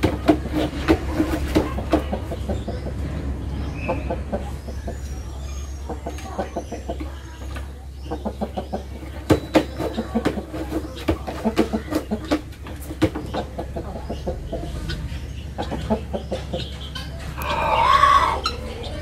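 Rooster giving low, rapid, repeated clucking calls to a young hen, the call a rooster uses to coax a hen to a nest spot to lay. Near the end a louder call, about a second long, rises and falls in pitch.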